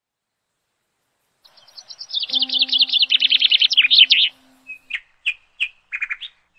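Birds chirping: after a moment of silence, a fast, high, rapidly repeated chirping trill for about three seconds, then slower single chirps.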